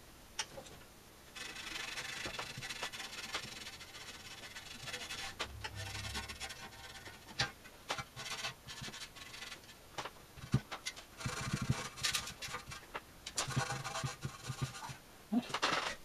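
A cloth rag rubbing and wiping the inside of a metal instrument cabinet, a scrubbing hiss that goes on for several seconds, followed by scattered light knocks and clicks.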